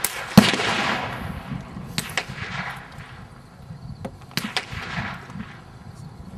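AK-103 rifle (7.62×39mm) fired in single shots, a handful of sharp reports spaced irregularly, the first about half a second in the loudest, each followed by a brief echo.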